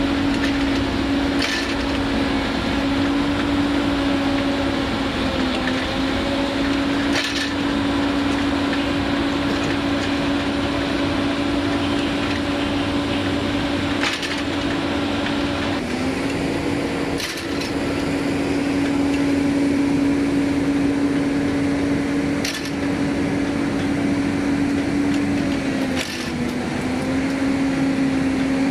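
Hyundai Robex crawler excavator running at steady engine speed, a constant hum with a noisy clatter over it. The pitch sags briefly three times. A few sharp clicks or knocks fall at irregular moments.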